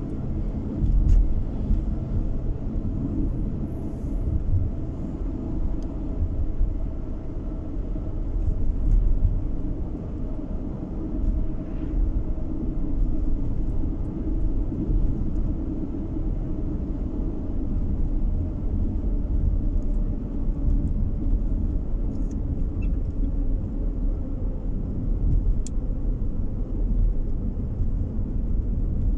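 Car driving along a road, heard from inside the cabin: a steady low rumble of tyres and engine.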